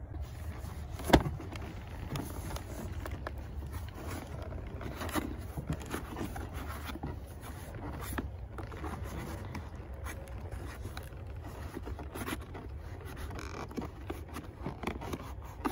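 Leather scraping and rubbing as an oiled stirrup leather is pushed and pulled through the slots of a western saddle's tree under the lifted fender, with a sharp knock about a second in. A steady low rumble lies underneath.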